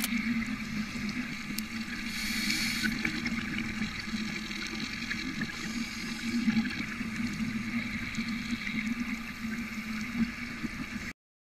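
Underwater ambience: a steady watery rushing with a low hum and brief louder hissing surges about two and six seconds in, cutting off suddenly.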